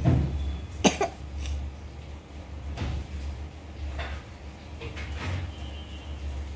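Pencil drawing on notebook paper in short strokes, with two sharp clicks about a second in over a low steady hum.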